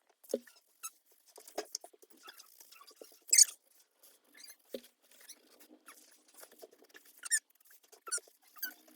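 Mechanical pencil scratching across paper in short, irregular strokes, with a couple of louder, sharper scratches.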